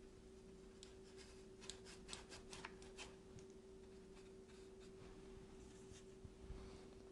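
Faint scratching of a small flat brush dabbing paint onto textured watercolour paper: a quick run of short strokes in the first three seconds, a few more near the end, over a steady low hum.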